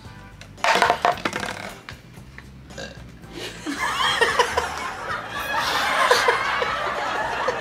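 A person burps loudly about a second in, then laughter breaks out and keeps going from about four seconds in.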